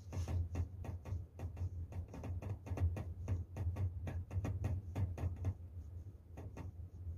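A quick, irregular run of light taps or clicks, several a second, over a steady low hum.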